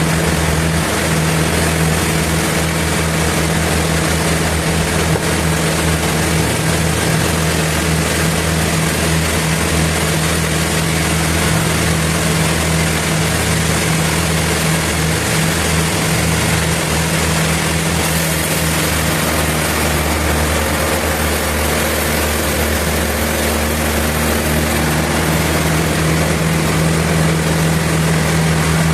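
Sawmill machinery running steadily: a loud, constant drone with a strong low hum and hiss over it, without pauses.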